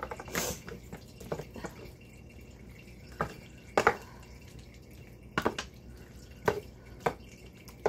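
Wooden spoon stirring pasta, cherry tomatoes and cream cheese in a disposable aluminium foil pan: wet squishing, with about eight separate, irregularly spaced strokes of the spoon against the foil.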